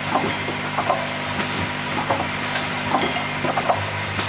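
Automated pneumatic assembly machine with a rotary table running: a steady hum and hiss, with short irregular clicks and knocks from its actuators and moving parts, about three a second.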